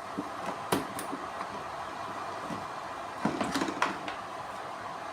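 HHO electrolysis generator running with bubbles forming, a steady hiss. A few sharp clicks and knocks of the unit being handled come about a second in and again around three and a half seconds in.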